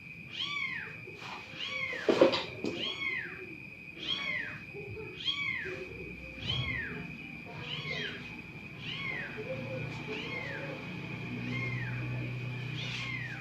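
A cat, most likely a kitten, mewing over and over, each mew a short high call rising and falling in pitch, a little faster than one a second. A sharp knock about two seconds in stands out as the loudest sound, and a faint steady high whine runs behind.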